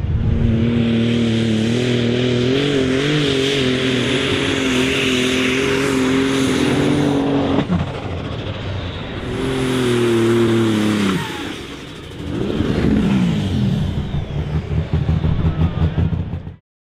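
Super Stock pulling tractor's engine running hard at full throttle, its pitch held steady for about eight seconds, then dropping off and falling in pitch. It revs up again in repeated pulses before the sound cuts off suddenly.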